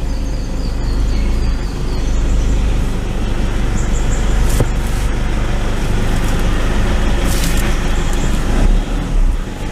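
Steady road and engine noise inside the cabin of a moving 2013 Toyota Innova, a continuous low rumble with a few brief higher sounds.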